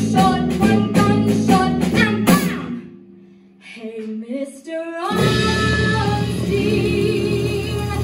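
Live band of keyboard, bass guitar and drum kit backing a woman singing a show tune. The band stops sharply about two seconds in. A rising melodic line carries a short, near-quiet break, then the full band crashes back in on a held chord under the singing.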